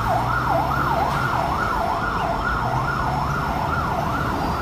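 Battery-operated toy fire truck's electronic siren sounding a fast, even up-and-down wail, about two and a half sweeps a second.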